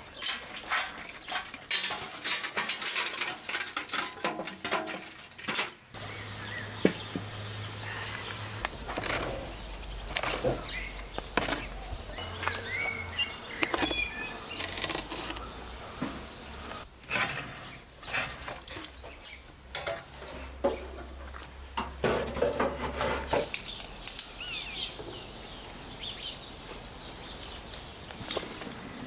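Metal clatter and scraping of a poker raking embers in a clay oven against a metal tray, and a metal pan set down on the ash, in a run of short knocks and clinks. Birds chirp now and then.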